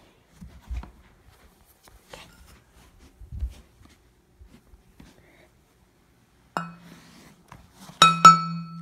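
Soft thumps and rustles of handling and steps in the dark, then a steady hum that starts suddenly near the end. About eight seconds in comes the loudest sound: a sharp metallic clink that rings on with several clear tones.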